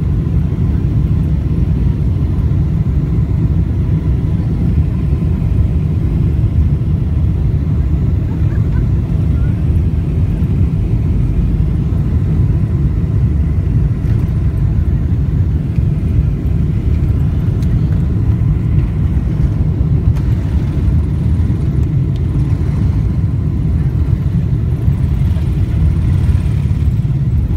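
Cabin noise of a Boeing 747-400 on takeoff, heard from a window seat over the wing: its four engines at takeoff thrust over a steady, loud rumble as the jet accelerates down the runway and lifts off. The sound holds at one level, with a little more hiss in the later part.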